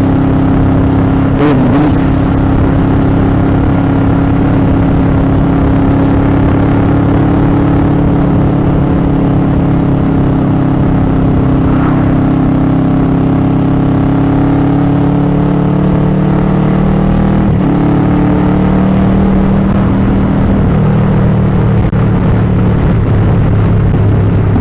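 Motorcycle engine running at a steady cruise, its note holding level and then easing slightly lower about two-thirds of the way through.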